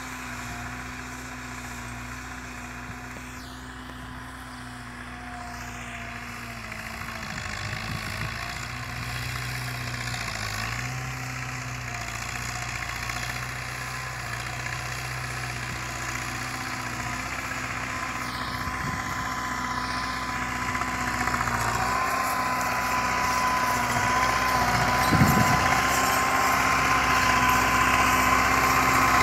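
Belarus 510 tractor's diesel engine running steadily as it tills a field, growing louder as the tractor comes closer. A steady high whine strengthens over the engine in the second half.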